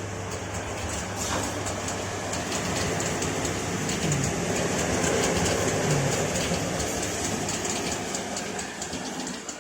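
A wet-belt CNC sanding and deburring machine running steadily, with a mechanical hum under a hiss and a faint, fast, even rhythmic ticking.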